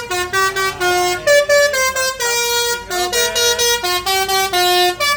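Bus telolet horn, a multi-tone air horn, playing a quick melody of short notes that jump up and down in pitch, often two notes sounding together, with brief breaks between them.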